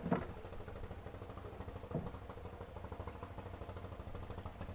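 A small engine idling steadily, a fast even low pulsing, with a soft knock at the start and another about two seconds in.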